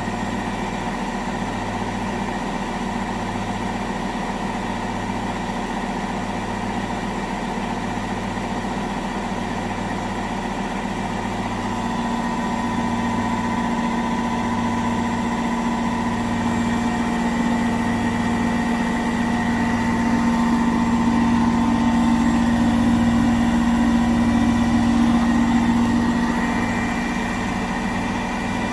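Indesit washing machine drum spinning at high speed in its final spin, near its 1400 rpm maximum. It makes a steady machine hum with a slow pulsing throb underneath; a drone swells louder through the middle and eases off near the end.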